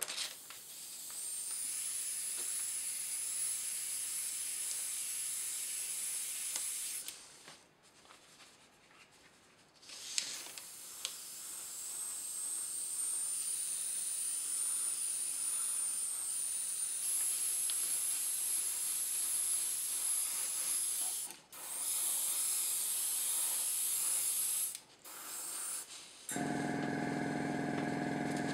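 Airbrush spraying paint: long bursts of hissing air with a thin high whistle, stopping and starting a few times. Near the end a small motor, the airbrush compressor, starts up with a steady hum.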